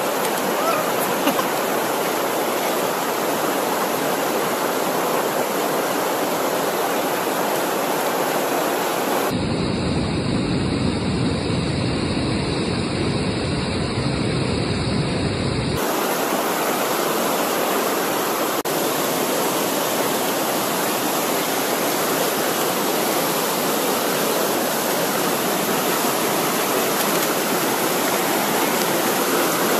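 Fast mountain river rushing over rocks in white-water rapids, a steady noise of churning water. For about six seconds in the middle it sounds deeper and duller, then returns to its brighter rush.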